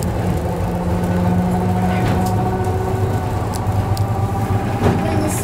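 Inside an old electric tram running along its track: a steady low hum from the motors and running gear, with a few sharp clicks and knocks along the way.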